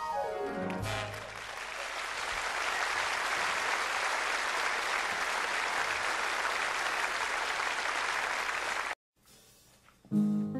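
A swing big-band number ends on final notes sliding down, then an audience applauds steadily for about eight seconds. The applause cuts off abruptly, and soft piano begins the next song near the end.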